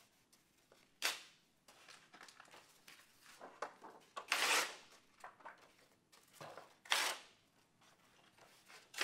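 Construction paper being torn by hand into pieces: about four separate rips, the longest near the middle.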